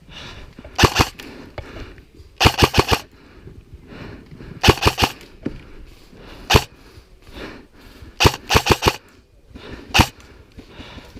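Airsoft rifles firing in a firefight: short rapid bursts of a few shots, with single shots in between, spread over several seconds.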